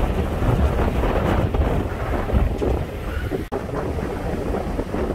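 Gusty hurricane wind buffeting the microphone: a loud, steady low rumble of wind noise. There is a brief dropout about three and a half seconds in.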